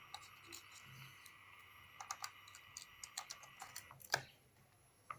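Small plastic clicks and taps from handling a car stereo and plugging in a USB stick, the loudest about four seconds in. A faint steady high whine stops with that loudest click.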